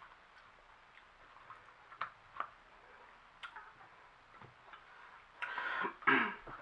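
Eating sounds: a few soft, scattered clicks and smacks. Near the end comes about a second of a person's voice.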